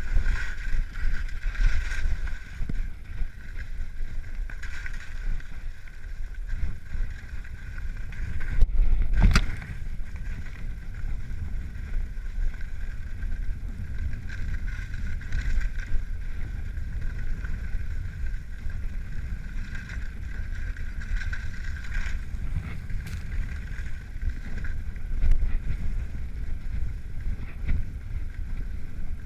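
Wind buffeting a GoPro Hero3 during a fast descent over packed snow, a steady low rumble with the hiss of sliding on snow over it. One sharp knock about nine seconds in.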